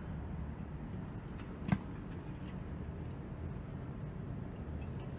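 A metal dipstick pushed back into its tube on a stopped diesel engine, giving a few light clicks and one sharper metallic tap about two seconds in, over a steady low background rumble.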